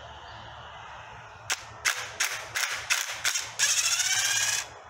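Cordless driver backing out a thermostat-housing bolt on a Toyota 2GR-FE V6 engine. It gives a string of short bursts starting about a second and a half in, then one steady run of about a second as the long bolt spins out.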